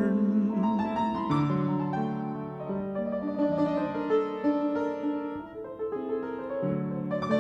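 Grand piano playing a slow solo passage of chords and melody notes, with no voice.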